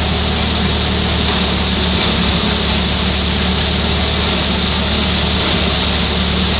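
Tractor-powered paddy thresher running steadily under load: a constant low mechanical drone with a dense rush of air and straw blowing through the machine.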